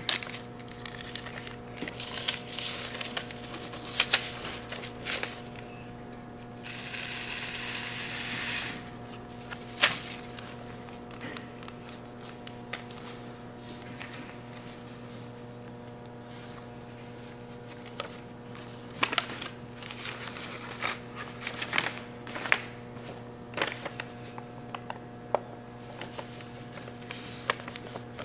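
Small plastic bag and paper crinkling and rustling, with scattered light clicks and scrapes, as shredded cell-phone particles are handled into a bag. A longer rustle comes about seven seconds in, all over a steady low hum.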